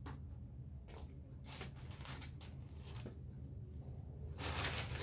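Rustling of clothing as garments are put down and picked up from a counter: scattered soft rustles, then a louder stretch of rustling near the end. A steady low hum runs underneath.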